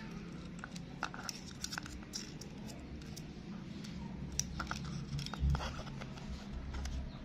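Hands fitting wires and a small circuit into a white PVC pipe fitting: scattered light clicks, taps and rustles of plastic and wire, with one dull thump about five seconds in.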